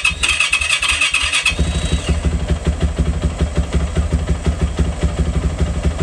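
2018 Yamaha YZ450F's single-cylinder four-stroke engine being cranked by its electric starter for about a second and a half, then catching and idling with an even beat, started to test a newly wired tether kill switch.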